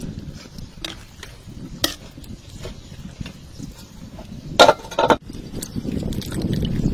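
A metal utensil clinking and scraping in a wok of chicken drumsticks simmering in liquid: scattered light knocks, then two louder clatters about two-thirds of the way through. Wet handling sounds follow near the end.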